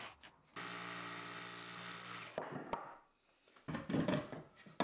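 Milwaukee Fuel cordless jigsaw cutting laminate-faced birch plywood, a steady buzz that drops out briefly at the start and stops a little over two seconds in. Near the end come louder knocks and clunks as the router lift is lowered into the cut-out hole.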